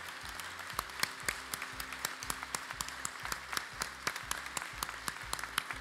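A large audience applauding, many separate claps overlapping into a steady patter.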